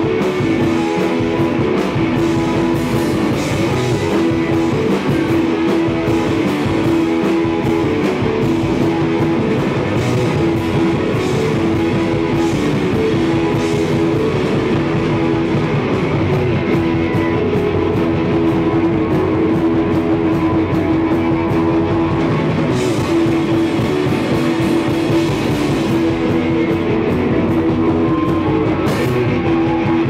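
Live rock band playing loud and steady: electric guitars over bass and a drum kit.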